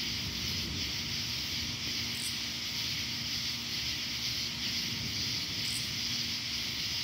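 Steady chorus of night insects, a continuous high trilling. A brief, higher chirp cuts in twice, about two seconds in and near the end.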